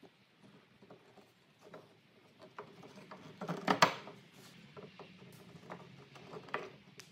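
Wooden pieces of a half-lap grid being fitted and pressed together on a workbench: scattered light knocks, taps and scrapes of wood on wood, with the loudest cluster of knocks about three and a half seconds in.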